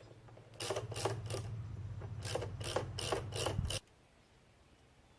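A hand tool working on the metal shifter mounting plate: about nine short strokes in two quick runs over a low steady hum, stopping abruptly about four seconds in.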